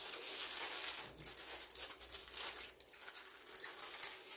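Aluminium foil crinkling and rustling in uneven bursts as it is handled around a cooked pork butt.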